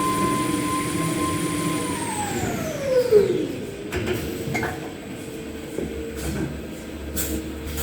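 Motor-driven machinery of a maxi roll paper converting line running with a steady whine, then spinning down about two seconds in, its pitch falling over a second or so. A quieter steady hum remains, with a few sharp clacks.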